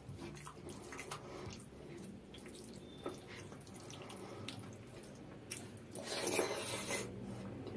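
Wet squishing and small clicks of fingers mixing rice with runny dal on a plate. About six seconds in comes a louder wet sound as a handful is put in the mouth and eaten.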